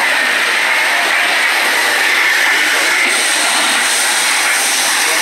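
Steady rushing hiss of water spraying from a fire hose onto smouldering debris, with indistinct voices faintly beneath. The hiss grows brighter about three seconds in.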